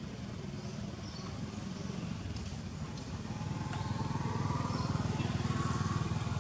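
A motor vehicle engine running off-screen, a low pulsing rumble that grows louder about halfway through, with a faint whine on top.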